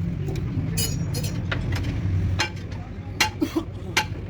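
Sharp metallic clinks of steel spanners and parts knocking together, one or two a second and mostly in the second half, over a steady low hum.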